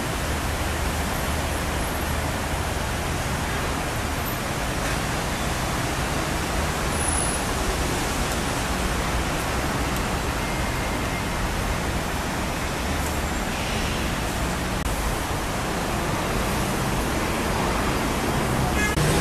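Steady roar of dense city road traffic, an even hiss of noise with no single vehicle standing out.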